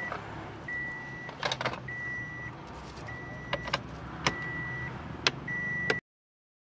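A car's electronic warning chime beeping steadily, one high beep about every 1.2 seconds, over sharp plastic clicks and knocks as a screwdriver and hands work the head unit loose from its dashboard bracket. Everything cuts off suddenly near the end.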